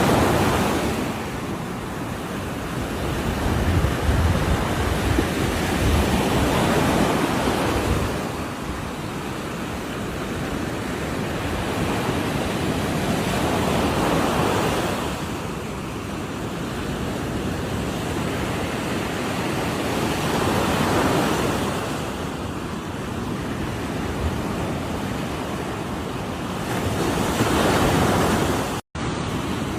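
Ocean waves breaking on a shore, a surge rising and washing back about every seven seconds. The sound drops out completely for a split second near the end.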